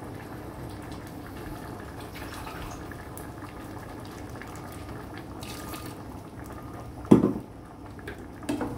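A pan of aviyal (vegetables under a coconut paste and water) simmering with a steady, soft bubbling. A brief louder sound comes about seven seconds in.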